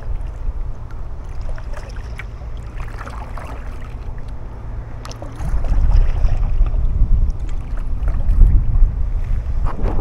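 Wind buffeting the microphone as a low rumble, gusting much louder about halfway through, over the light splashing of a kayak paddle in the water.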